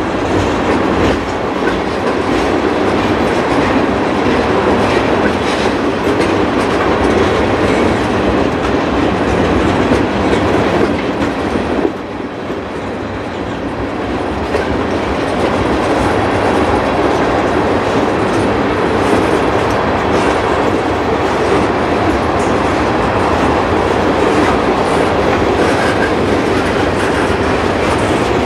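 Freight train tank cars and boxcars rolling past, their wheels clicking over the rail joints in a steady clatter, briefly quieter about twelve seconds in.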